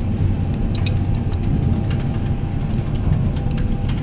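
Light, scattered clicks and taps of a metal clasp lock being handled as strings are threaded through its loops, over a steady low rumble.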